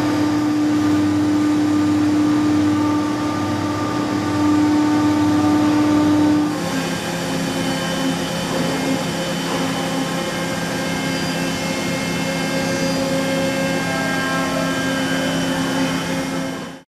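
Doosan VCF 850LSR vertical machining centre running, a steady mechanical hum with several held whining tones. The sound changes abruptly about six and a half seconds in, then carries on steadily and fades out just before the end.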